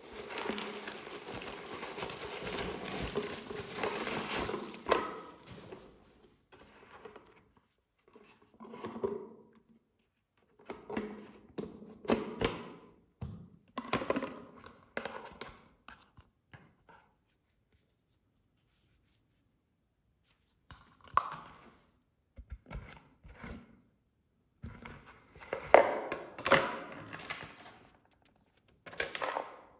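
Packaging being opened and products handled by hand: a few seconds of continuous rustling at the start, then intermittent handling noises and light knocks, with a pause of a few seconds midway.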